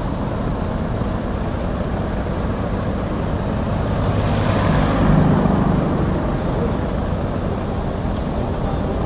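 City street traffic: a steady rumble of road noise, with a car passing close and loudest about four to six seconds in. It is recorded through a compact camera's built-in microphone.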